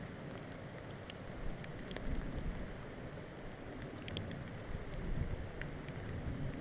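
Wind buffeting the microphone in uneven low rumbles, with a few faint sharp ticks scattered through.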